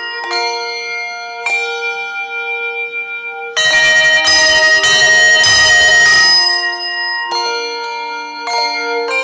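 Handbell choir ringing a hymn arrangement: chords struck and left to ring on, with a louder, fuller chord about three and a half seconds in.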